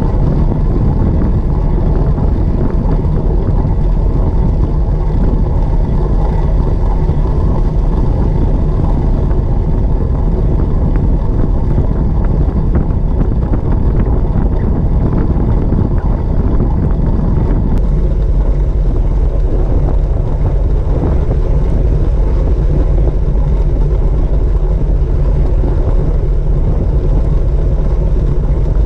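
Steady low rumble of wind on a bike-mounted action camera's microphone, together with a fixed-gear track bike's tyres rolling at speed on wooden velodrome boards.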